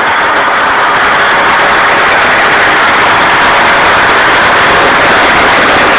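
Red fire truck's engine and water pump running close by: a loud, steady rushing noise.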